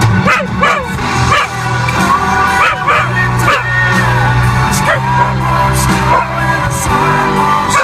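A mutt howling along to music inside a car: repeated short rising-and-falling howls and yips over the song's steady bass line.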